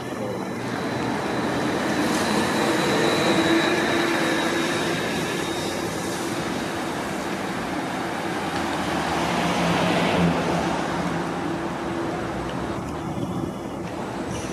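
City bus driving past close by: a steady engine hum and a high whine, swelling as it passes a few seconds in. Traffic noise continues after it, rising again briefly later on.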